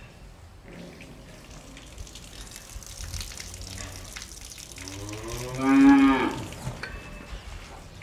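Cattle mooing: fainter low calls about a second in, then one loud, drawn-out moo lasting about a second a little past the middle, over a steady background hiss.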